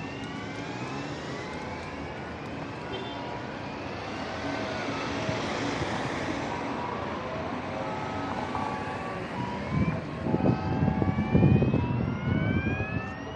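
Downtown street traffic. A vehicle passes close by about midway, and heavy low rumbling comes in gusts near the end.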